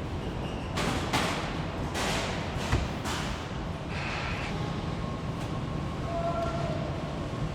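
Car assembly line machinery in a steady hum, with several short hissing bursts, a sharp thump, then a few brief electronic beeps.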